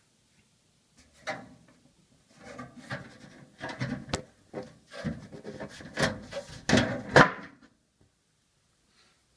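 Side panel of a small Deepcool Wave V2 PC case being taken off and handled: rubbing and scraping with several sharp knocks and clicks, starting about a second in, the loudest knocks about four and seven seconds in.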